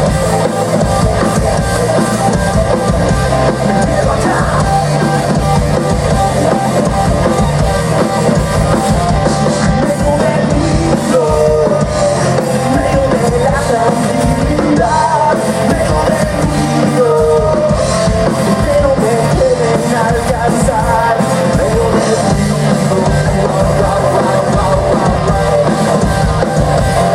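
Live rock band playing loud and without a break: drum kit and electric guitars, with singing.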